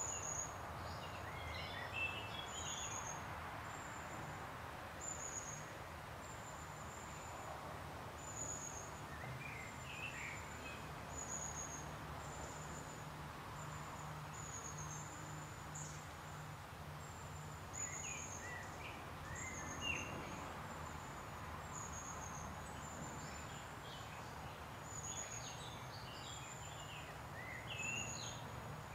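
Woodland birdsong: a very high, thin note repeated about once a second, with short song phrases from other birds breaking in every several seconds. A steady low hum runs underneath.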